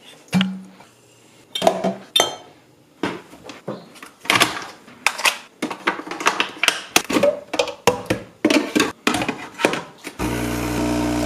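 A string of plastic clicks and knocks as a capsule is loaded into a Nescafé Dolce Gusto capsule coffee machine. About ten seconds in, the machine's pump starts with a loud, steady buzz as it begins brewing.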